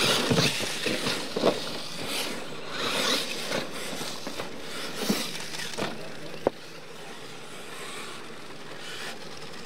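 Battery-electric Losi LMT radio-controlled monster trucks racing on a dirt track: a rushing hiss of tyres churning loose dirt, with several knocks from bumps and landings. A sharp click comes about six and a half seconds in, after which the sound is quieter.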